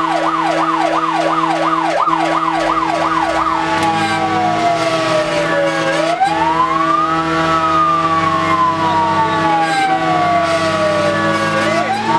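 Fire engine's electronic siren heard from inside the cab: a fast yelp of quick repeated sweeps for about the first three and a half seconds, then switching to a slow wail that falls gradually and rises again twice. The truck's engine hums steadily underneath.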